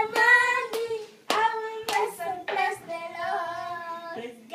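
Hand claps keeping time to a sung song, about five sharp claps roughly every half-second, then the singing carries on without clapping for the last couple of seconds.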